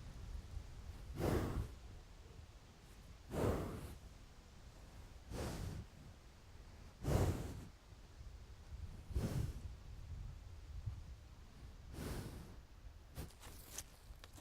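Slow, regular breathing close to the microphone, one breath about every two seconds, with a few faint clicks near the end.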